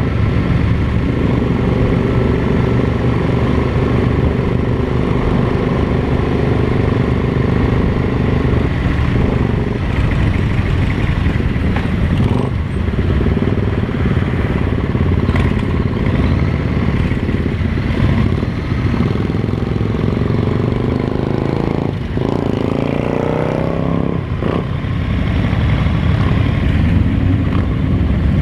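Cruiser motorcycle engine running while riding at town speed, heard from on the bike. About three-quarters of the way through, the engine note rises as the bike accelerates, with a few brief dips in level around it.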